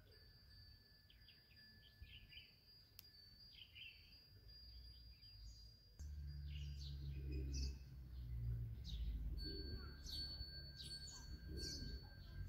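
Small birds chirping repeatedly and faintly over a thin, steady high whine. About halfway through, a low rumble comes in suddenly.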